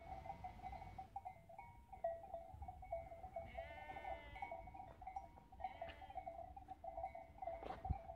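Sheep bleating: one long, wavering bleat about halfway through and a shorter one soon after. Under them runs a steady, flickering high tone, and there is a single thump near the end.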